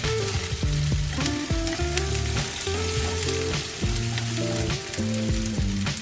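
Sliced shallots and green chillies sizzling in hot coconut oil with mustard seeds, stirred in the pan with scattered clicks of the spoon. Soft background music plays under it.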